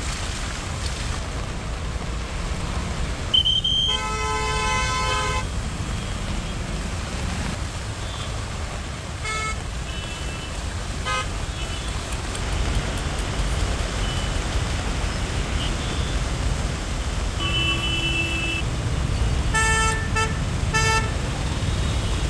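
Vehicle horns honking over a steady low rumble of road traffic: one long honk about four seconds in, a few short toots around ten seconds and again at eighteen, and a quick run of toots near the end.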